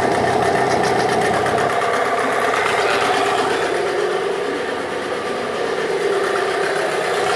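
2003 Yamaha 8 HP two-stroke twin-cylinder outboard motor running steadily in a water test tub.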